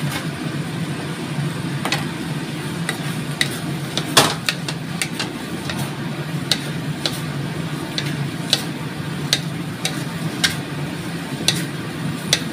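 Wooden spatula stirring tofu cubes through a chilli sambal in a steel wok, with scattered scrapes and knocks against the pan and the sauce frying, over a steady low hum. The sharpest knock comes about four seconds in.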